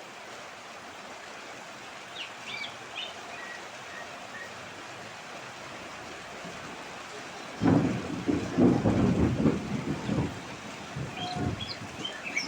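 Steady rain with a few short, rising bird calls. About seven and a half seconds in, a loud rumble of thunder breaks in and rolls on, with more bird calls near the end.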